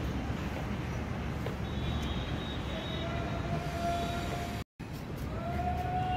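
Wind rumbling on the microphone, with a distant steady tone sounding twice in the second half, each time for about a second and a half.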